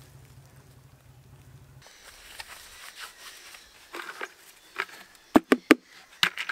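Faint background music ends about two seconds in, then a plastic bucket and a paint tin are handled on gravel: light scrapes and clatter, with three sharp knocks in quick succession about five seconds in and two more near the end.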